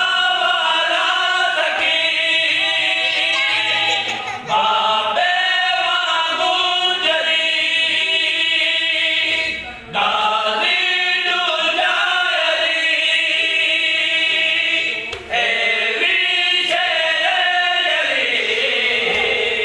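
A group of men chanting a qasida together without instruments, in sustained phrases a few seconds long, each followed by a brief break for breath.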